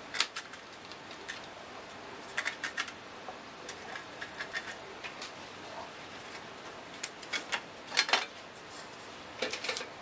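Scattered sharp clicks and short clatters of a Dell Precision laptop's bottom access cover being unclipped and lifted off, with the loudest clatter about eight seconds in.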